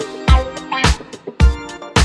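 Background music with a steady kick-drum beat about twice a second and pitched instrumental notes over it.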